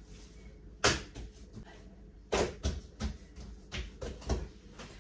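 Kitchenware knocking and clattering on a counter as it is handled. There is one loud knock about a second in, then five more sharp knocks in the second half.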